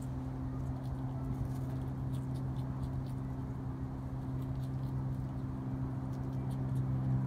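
A steady low hum, with faint irregular clicks and crunches from a striped skunk eating food off a tray.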